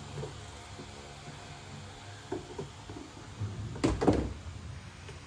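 Hard objects being handled: a few light knocks, then a louder double knock about four seconds in.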